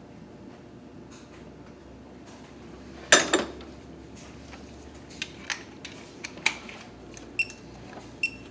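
Metal hand tools and engine parts clanking and clinking on a cylinder head: one loud clank about three seconds in, then a string of lighter, sharp clinks, the last two ringing briefly.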